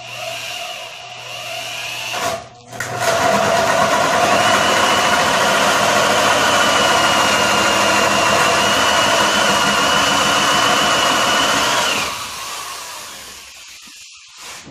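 Electric drill turning an adjustable hole cutter through a wooden board, finishing the hole from the back side so the wood doesn't blow out. It runs briefly, stops for a moment about two seconds in, then runs steadily with a high whine for about nine seconds before winding down near the end.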